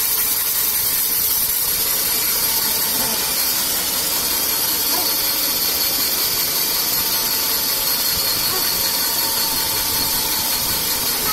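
Large vertical band saw running, its blade cutting lengthwise through a thick slab of koroi wood: a steady hiss over the machine's drone.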